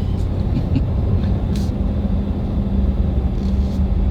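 RV driving at road speed: steady engine and road noise, a low drone with a constant hum.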